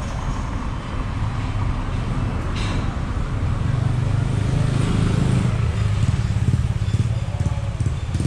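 A motorbike engine running steadily close by, a low throbbing rumble that gets louder about halfway through.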